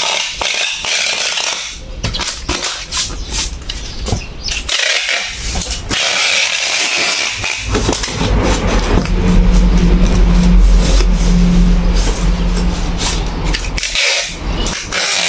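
Rustling, crinkling and scraping as the contents of a large cardboard box are pressed down and the box is taped shut with a packing-tape dispenser. A steady engine hum comes in about halfway through, is loudest for several seconds, then fades.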